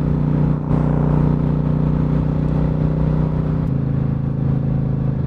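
Suzuki Marauder cruiser motorcycle's engine running steadily at cruising speed. Its pitch steps down slightly about three and a half seconds in as the revs ease.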